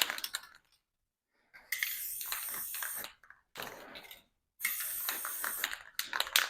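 Aerosol spray-paint can: the mixing ball rattling as the can is shaken, then three spells of spray hissing, the first and last over a second long and the middle one short and fainter. More rattling follows near the end.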